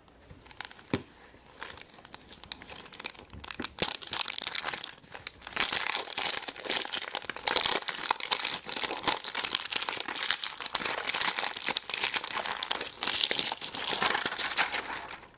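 Wrapping on a giant surprise egg crinkling and tearing as it is unwrapped by hand. The crackling is sparse at first and becomes dense and steady after about five seconds.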